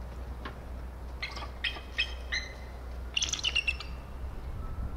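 Bald eagle calling: four high, piping chirps in quick succession, then a fast chattering run of notes about three seconds in. A low steady rumble runs beneath.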